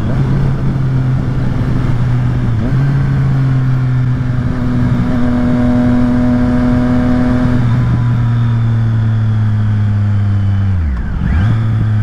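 Triumph Street Triple 765 RS's inline three-cylinder engine through a Yoshimura exhaust, pulling at fairly steady revs with small steps in pitch. Near the end the revs drop sharply and pick straight back up, with a little crackle and pop on the exhaust.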